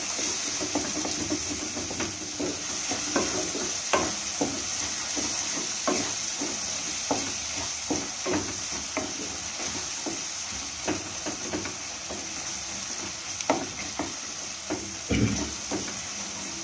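Wooden spatula stirring and scraping onion-tomato masala in a nonstick frying pan, with irregular light knocks against the pan over a steady sizzle of oil. The ground spices are being fried down on a low flame.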